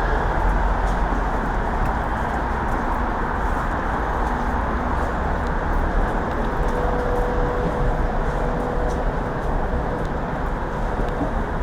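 Steady rumble and hiss of a Moscow Central Circle electric train, with a faint steady whine for a few seconds past the middle.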